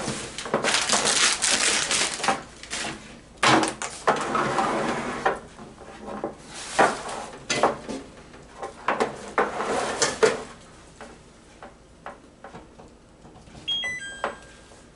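Scraping, clattering and a few knocks as the Blackstone 17-inch electric griddle's cooking plate and lid are handled and seated in the base. Near the end, a short electronic chime of a few stepped tones as the griddle is powered up and its display lights.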